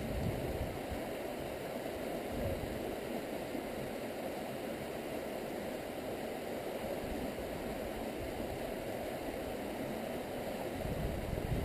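Steady rush of flowing stream water, with a low rumble underneath that grows near the end.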